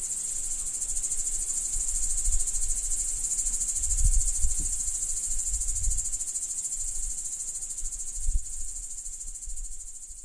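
Crickets stridulating: a continuous high-pitched, rapidly pulsing trill, with a few low rumbles. It fades near the end.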